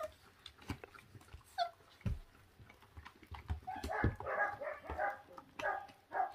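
Twenty-six-day-old feral-dog puppies crowded over raw meat: one gives a short falling whine, then from about four seconds in come several seconds of rough whining cries as they jostle over the meat, with scattered knocks against the plastic crate.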